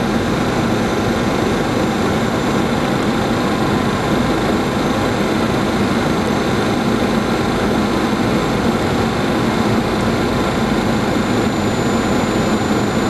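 Steady flight-deck noise of a Boeing 737-700 on final approach: an even rush of airflow and engine noise, with faint steady high whines on top.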